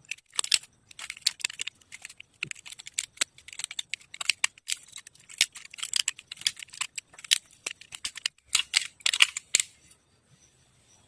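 Hand tool scraping and cutting at a homemade fishing float in quick, uneven rasping strokes, with clicks of the tool, stopping about ten seconds in.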